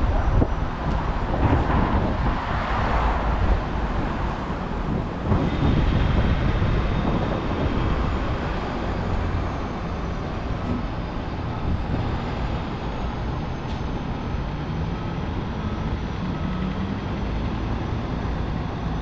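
City street traffic: vehicles running and passing, a steady low rumble that is a little louder over the first several seconds, then settles.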